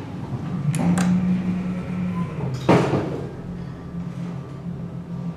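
Elevator car doors closing: a few light clicks, then a solid knock about two and a half seconds in as the doors meet, over a steady low hum in the car.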